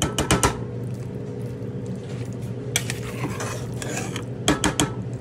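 Metal spoon clinking and scraping against the inside of a pressure cooker while thick vegetable sabzi is stirred, with a cluster of knocks near the start, a few around three seconds in and more near the end. A steady low hum runs underneath.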